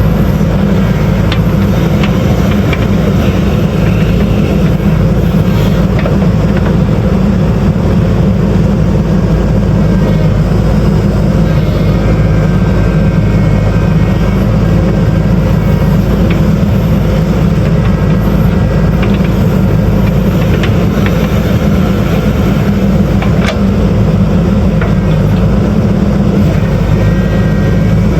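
JCB backhoe loader's diesel engine running steadily at working speed, with a few faint metallic knocks.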